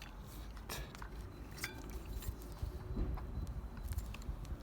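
A few scattered light metallic clicks and clinks of hub-motor parts and tools being handled.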